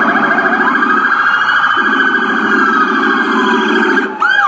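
American police car siren sounding, with several tones layered: slow rising and falling glides over a lower pulsing tone that comes in two long stretches. Near the end it switches to a fast yelp of quick up-sweeps.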